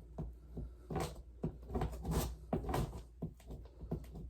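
Cardboard shipping box being turned and handled: a run of irregular knocks, bumps and scrapes of cardboard.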